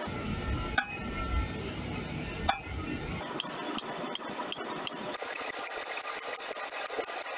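Hand hammer striking a red-hot bar of bearing steel on a steel-bar anvil: two heavy, ringing blows about 0.8 and 2.5 seconds in, then a run of quicker, lighter metallic clicks.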